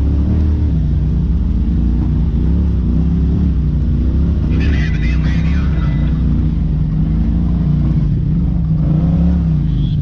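Polaris RZR side-by-side engine running at crawling speed, its pitch rising and falling as the throttle is fed on and off over rocks. About halfway through, a brief higher-pitched noise rises over it.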